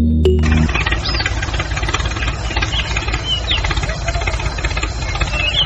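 Music stops just under a second in. It gives way to a steady, rapid chugging engine-like running from the toy tractor as it pulls a brick-loaded trolley. A few short high chirps sound over it.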